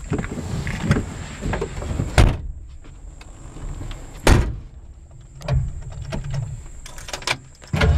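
Knocks and clunks of someone getting settled in the cabin of a 1961 Ford Fairlane, with two sharp clunks about two and four seconds in, such as the door shutting. Near the end its 390 V8 fires and keeps running with a deep, steady rumble.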